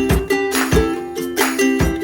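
Background music: an upbeat plucked-string tune, ukulele-like, over a regular beat of about two strikes a second.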